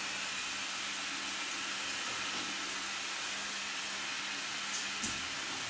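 Steady hiss with a faint low hum underneath; the hum stops with a couple of small clicks about five seconds in.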